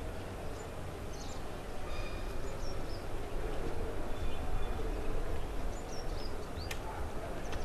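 Outdoor ambience: a steady low rumble with small birds chirping in short high calls several times over it.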